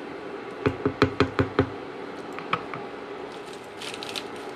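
A wooden spoon knocking against the rim of a cooking pot: about six quick ringing knocks in a row, then one more a second later.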